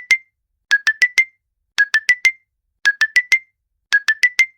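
iPhone-style timer alarm going off: a group of four short, bright notes rising step by step in pitch, repeated about once a second, which signals that the countdown has finished.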